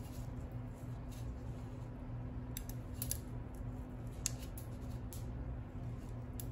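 Steady low machine hum with a handful of light, sharp clicks and snips, the loudest about three seconds and four seconds in.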